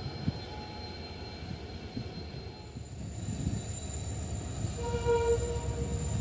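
Express train hauled by a WAP7 electric locomotive approaching and drawing level, its rumble growing steadily louder. A single horn blast of about a second sounds roughly five seconds in.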